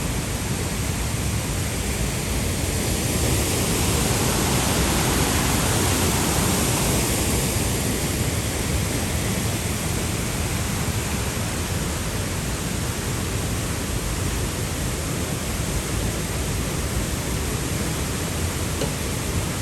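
Dray Nur waterfall's falling water rushing in a steady, unbroken roar.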